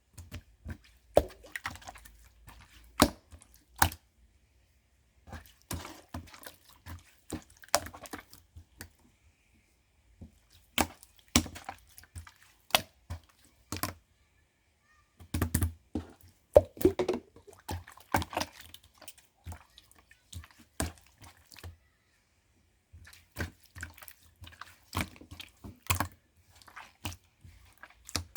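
Slime being squeezed and poked by hand: wet squishing with bursts of sharp clicking pops, in clusters broken by short pauses.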